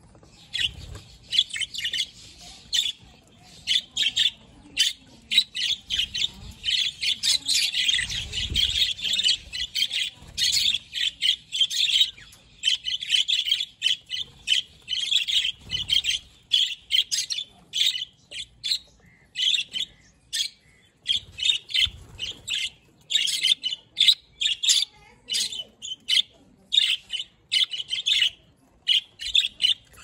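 A flock of budgerigars chirping and chattering: many short, high chirps overlapping, densest in the first half and more spaced out towards the end.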